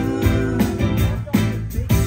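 Live band music with guitar and bass over a steady beat, amplified through a PA.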